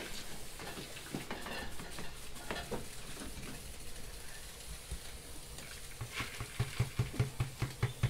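Ground corn being scraped from a bowl into a pot of water and stirred, a soft wet scratchy sound with scattered small clicks. Near the end comes a quick run of taps, about six a second.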